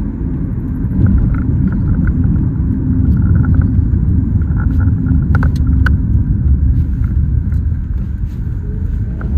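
Steady low rumble of engine and road noise inside the cabin of a moving Toyota compact sedan, with a few sharp clicks a little past halfway.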